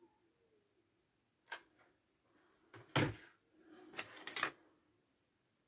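Wooden lolly sticks and a hot glue gun handled on a tabletop: a sharp click about a second and a half in, a loud knock about three seconds in, then a second of rustling and rattling that ends in two more knocks.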